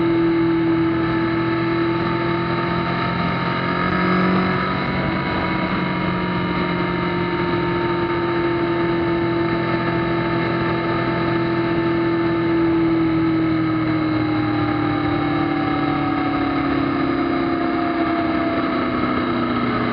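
Kawasaki ZZR1400's inline-four engine running at steady motorway cruising speed over rushing wind and road noise; in the second half the engine note falls gradually as the bike slows.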